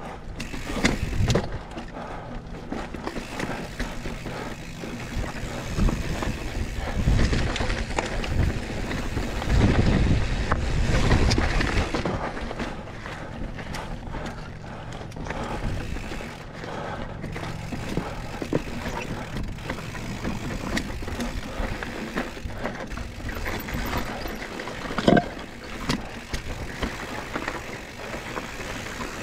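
Lapierre 27.5-inch mountain bike ridden over rough trail: tyres rumbling and crunching, and the bike rattling and clattering with many small knocks. Rumble, like wind on the microphone, swells for a few seconds in the middle, and there is one sharp, loud clack with a brief ring near the end.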